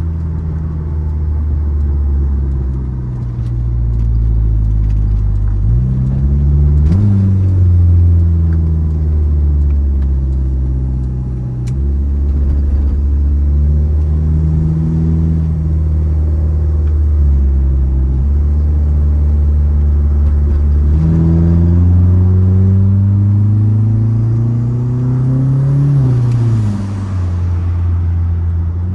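Mitsubishi Eclipse GSX's turbocharged four-cylinder engine running under way. The revs climb about six seconds in and fall sharply at a gear change. Later a long, steady climb ends in another sudden drop near the end.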